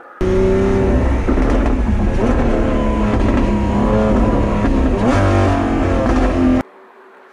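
Lamborghini Aventador SVJ's naturally aspirated V12 with a Novitec exhaust, accelerating hard with its note climbing through the revs. About five seconds in the pitch drops at a gear change and climbs again. The sound cuts in and out abruptly.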